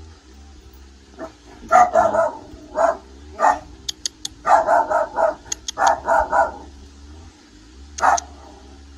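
A dog barking repeatedly in short barks, some single and some in quick runs of two or three.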